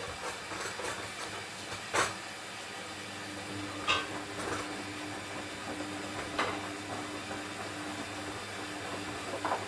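Hoover Dynamic washing machine drawing water for a rinse: a steady hiss of water running into the drum, with a low hum joining about three seconds in and a few sharp clicks and knocks.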